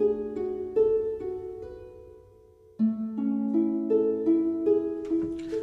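Background music: a gentle melody of plucked string notes, each ringing and dying away, fading out in the middle before a new phrase starts about three seconds in.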